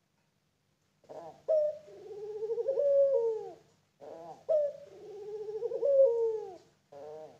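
Young puter pelung (domestic Barbary dove) cooing: two long drawn-out coos, each opening with a few short notes, then swelling and falling away. A third coo begins near the end.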